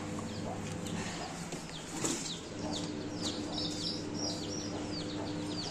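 Young chicken chicks peeping: many short, high cheeps that fall in pitch, several a second, over a steady low hum. A light knock about two seconds in.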